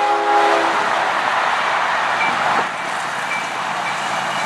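A CSX freight locomotive's air horn, a chord of several steady tones, cuts off under a second in. A steady rushing noise of the approaching train follows.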